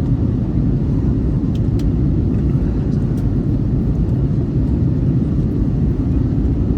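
Airbus A321 cabin noise: a steady low rumble of jet engines and rushing air, with a few faint clicks.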